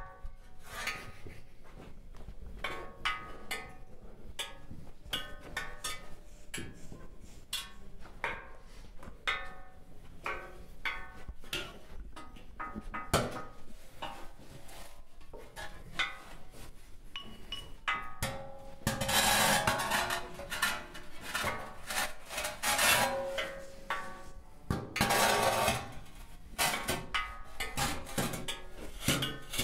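Sparse clicks, taps and knocks of hard objects, with a few short tones, then two longer stretches of loud rasping scraping about two-thirds of the way through, like hard material being rubbed or filed.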